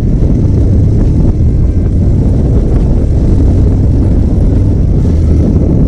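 Loud, steady wind rumble on the camera microphone from a moving motorcycle, with road and engine noise mixed into it.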